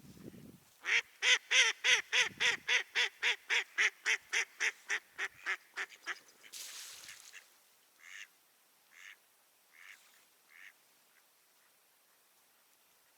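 Decoy mallard hen quacking: a long run of about twenty quacks at about four a second, loud at first and fading, followed by four single quacks about a second apart.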